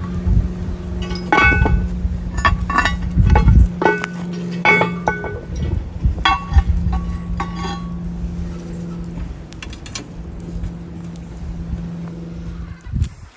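Heavy cast iron lid of a Lodge 12 Dutch oven clinking and ringing against the pot rim and a metal lid lifter as it is lowered and settled onto the pot, a string of clanks over the first eight seconds or so. A steady low hum runs underneath.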